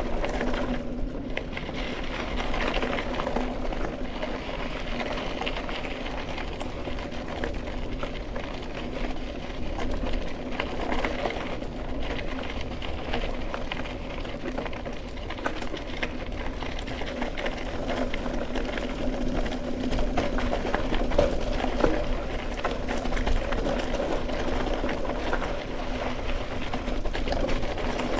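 Mountain bike riding along a dirt single-track trail: tyres rolling over packed dirt, with a steady buzzing hum from the bike and small irregular rattles over bumps.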